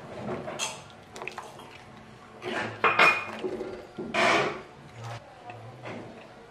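Metal ladle stirring soup in a nonstick pan, clinking and scraping against the pan, with the loudest scrapes about three and four seconds in.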